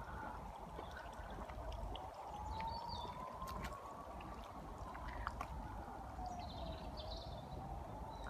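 Outdoor background: a steady low rumble under a faint tone that slowly rises, falls and rises again, with a few short bird chirps and scattered clicks.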